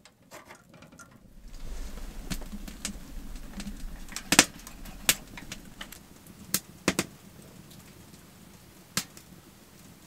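Wood fire crackling in a Pomoly tent stove: scattered sharp pops and snaps, the loudest about four seconds in, over a low rumble of the fire that fades after the first few seconds.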